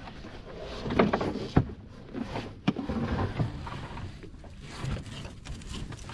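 A few sharp knocks and thuds aboard a small boat, the loudest about one and a half seconds in, over low rumbling handling noise.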